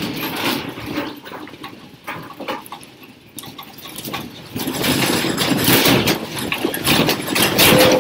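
Classroom desks and chairs rattling, knocking and scraping in an earthquake, over a continuous rumble that grows louder about halfway through, as students scramble under the desks.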